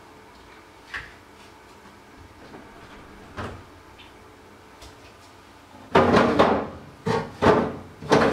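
Kitchen handling sounds: a few faint clicks, then about six seconds in a quick run of loud knocks and clatters as a refrigerator door is opened and things in it are moved about.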